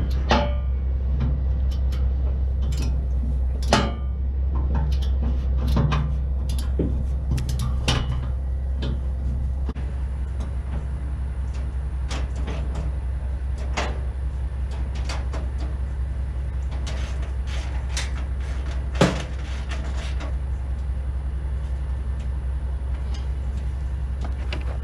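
A steady low engine drone with scattered metallic clinks and knocks from bolting the grain auger's swing section back onto its arm; one louder knock comes near the end.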